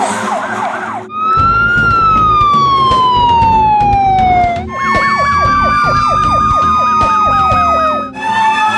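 Fire engine sirens in quick cuts. First a fast warbling yelp, then a siren tone sliding slowly down in pitch for about three seconds. Then a fast yelp under a steadier wail, with a second tone falling at the same time.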